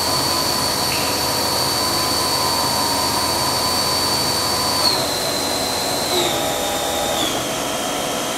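Haas VF-4 CAT40 spindle, recently replaced, running at about 6,000 RPM with a steady high whine that steps down in pitch three times, with a small click at each step, in the second half.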